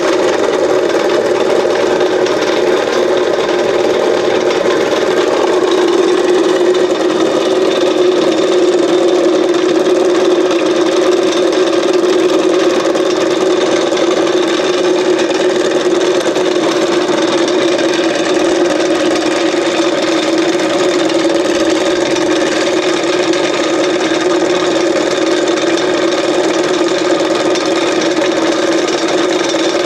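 Motor spinning a home-built neodymium-magnet generator rotor through a loose belt, running with a steady whir that holds even pitch throughout. It does not strain or change while the generator coil is shorted, the sign that the coil puts no braking load on the rotor.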